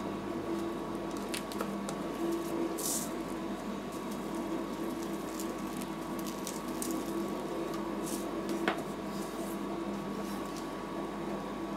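Rolled-ice-cream machine's refrigeration unit running with a steady hum, with a few faint clicks and a short hiss about three seconds in.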